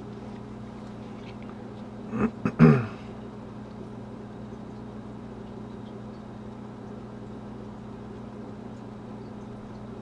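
Steady low electrical hum of room tone, broken about two seconds in by one short vocal sound from the man that falls in pitch, like a throat clearing.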